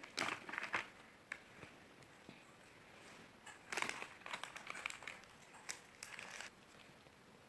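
Chocolate bar wrapper crinkling and tearing in short spells as it is handled and unwrapped.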